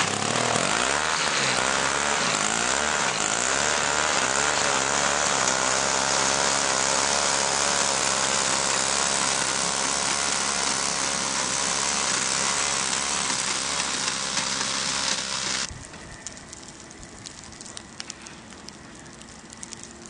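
Small single-stage snowblower engine running steadily as it clears snow. About three-quarters of the way through it cuts off abruptly, leaving a much quieter backdrop with faint light ticks.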